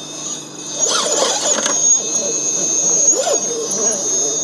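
Low-center-of-gravity RC rock crawler's brushless motor whining at a steady high pitch under load as it crawls up a steep rock face. There are two short, louder grinding spells, about a second in and just after three seconds.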